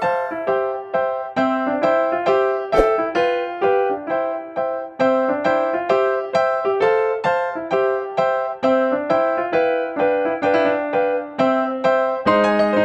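Background music: a piano-like keyboard plays a light melody of evenly paced notes, each fading after it is struck. A single sharp click about three seconds in.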